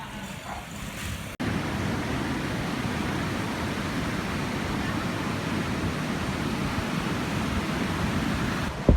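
Steady, even rushing noise that starts abruptly about a second and a half in, after a quieter stretch.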